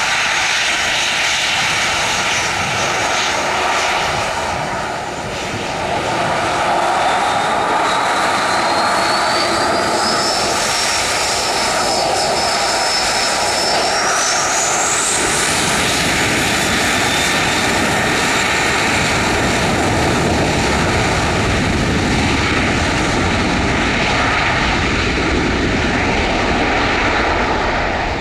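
Boeing 737-800's CFM56-7B turbofan engines spooling up for takeoff: a whine rises in pitch from about six seconds in, holds for a few seconds, then climbs sharply around fifteen seconds as the engines reach takeoff thrust. After that comes a steady, loud jet engine noise with a deepening rumble as the aircraft rolls down the runway.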